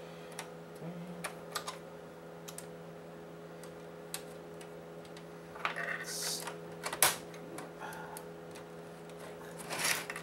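Light scattered clicks and taps of hands and a small screwdriver working on the metal shield and plastic parts inside an opened PlayStation 4, with a sharper click about seven seconds in. A steady low hum runs underneath.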